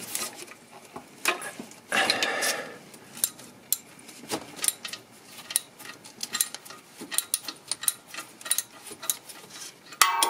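Socket ratchet on an extension bar working an alternator mounting bolt loose: irregular metallic clicks and clinks, with a denser, louder run of clicking about two seconds in.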